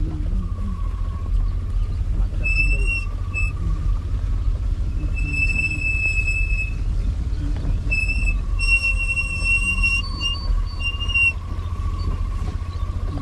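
Wind rumbling on the microphone, with a series of high, flat whistling notes, some short and some over a second long, coming and going over it.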